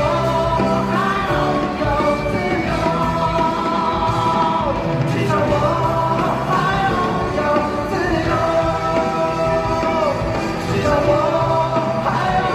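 A pop-rock song with a band playing and a voice holding long sung notes.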